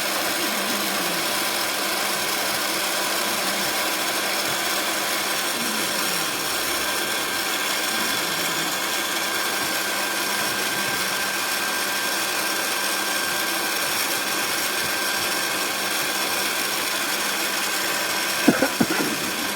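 Electric heat gun running steadily: an even blowing hiss with a faint steady whine from its fan motor, heating old paint to soften it for stripping. A few short knocks near the end.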